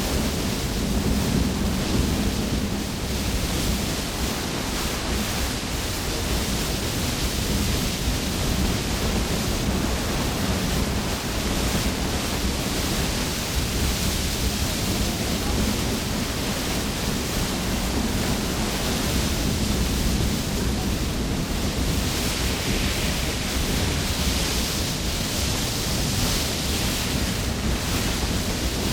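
Large waterfall pouring and splashing with heavy spray, a steady, dense rush of water.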